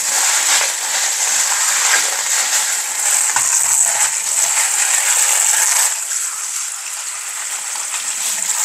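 Kitchen mixer tap running steadily into a sink, the stream splashing over a colander as hands rinse parts under it. The flow gets a little quieter a few seconds before the end.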